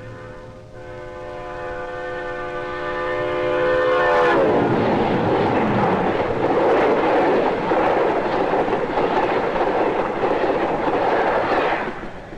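Diesel locomotive's air horn sounding a sustained chord that grows louder as the train approaches, then drops in pitch as it passes about four seconds in. The rumble and clatter of the passing train follow and stop suddenly near the end.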